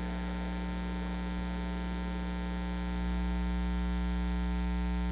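Steady electrical mains hum, a buzz of evenly spaced tones in the sound system's feed, with no voices heard. It gets a little louder about three seconds in.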